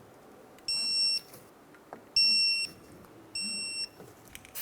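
Electronic torque wrench beeping three times, each beep about half a second long, as the wheel bearing bolts reach the set torque of 65 foot-pounds.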